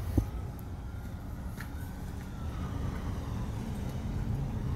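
A faint emergency vehicle siren wailing, its pitch slowly rising and falling, over a steady low rumble.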